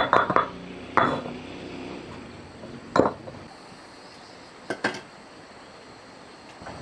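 Scattered sharp clinks and knocks of hard objects: a quick cluster at the start, single knocks about one and three seconds in, and a close pair near five seconds.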